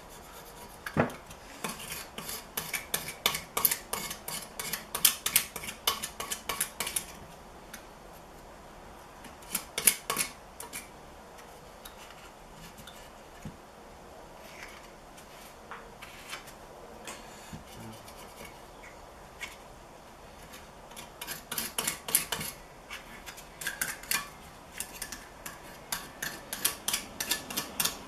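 A hand scraper working old gasket material off the crankcase mating surface of a Yamaha YZ125 two-stroke engine, in quick repeated scraping strokes. The strokes come in three spells, a long one at the start, a short one in the middle and another long one near the end, with fainter scraping between.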